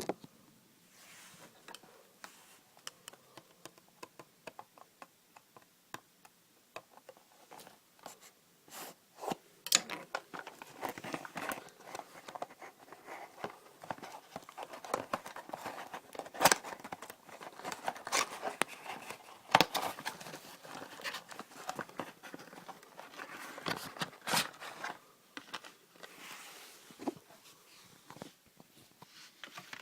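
Packaging of an iRig guitar interface being handled and opened by hand: plastic and cardboard rustling and crinkling, with many sharp clicks and knocks. It starts as sparse ticks and gets busier about ten seconds in.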